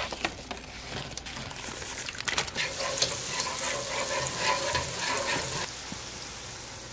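Small drops of pancake batter deep-frying in hot oil: a steady sizzle full of fine crackling, dropping off somewhat near the end.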